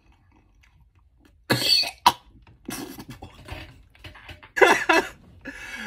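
A man coughs and splutters on a mouthful of fried pickle dipped in too much ranch, starting about a second and a half in, then breaks into bursts of laughter.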